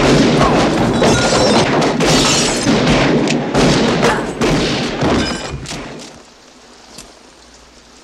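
Revolver shots fired in quick succession in a shootout, each shot sharp and echoing, with glass breaking among them. The firing stops about six seconds in, leaving a low steady background with one faint click.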